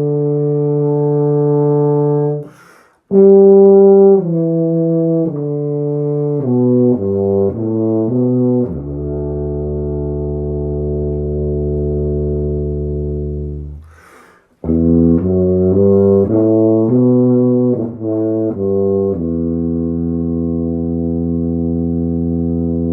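Mirafone 1865U five-valve CC tuba played through a Mirafone C4 mouthpiece: a held note, a quick breath, then a run of notes stepping down to a long low held note. After a second breath comes another run of notes settling onto a long sustained note near the end.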